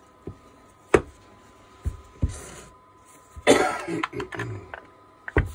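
Sharp knocks and clicks of tools and angle-grinder parts being handled on the workbench during reassembly, with a rough noisy burst lasting about a second midway.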